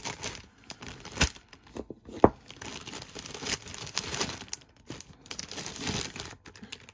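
Clear plastic bag crinkling and rustling as it is handled, with two sharp clicks about a second apart.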